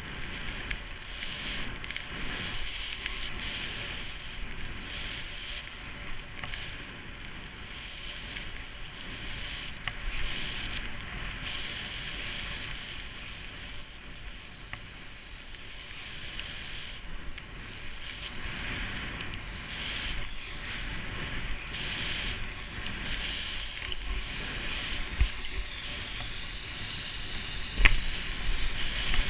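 Skis hissing through deep powder snow, swelling and fading every second or two, over a low rumble of wind on the microphone. A single sharp knock near the end.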